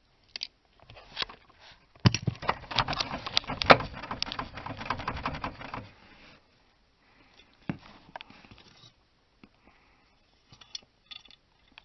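Hand tools and small parts clicking and rattling while screws are taken out of plastic dash trim. A dense run of rapid clicks starts about two seconds in and lasts about four seconds, with scattered single clicks and knocks before and after.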